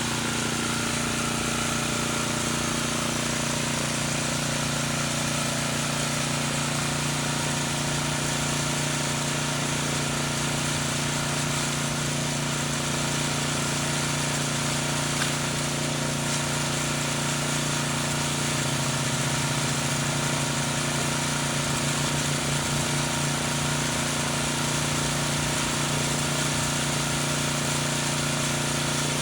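Engine-driven pressure washer running steadily, a constant mechanical hum with a rattly hiss over it; the low hum wavers slightly about two-thirds of the way through.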